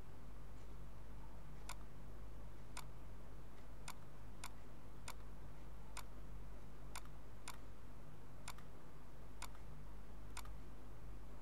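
Computer mouse button clicking about eleven times at uneven intervals, with a steady low hum underneath.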